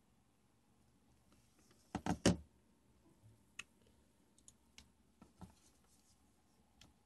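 Smartphone being handled: a quick run of three knocks about two seconds in, then a few scattered faint clicks.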